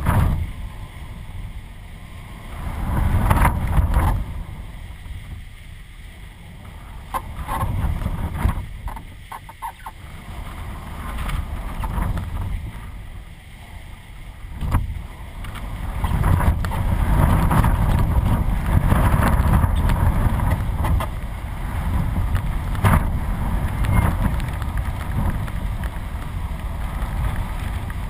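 Gusty 20–40 knot wind buffeting the microphone of a camera mounted on a flying kite. The wind swells and fades in gusts through the first half, then runs louder and steadier from about halfway on, with a few short clicks.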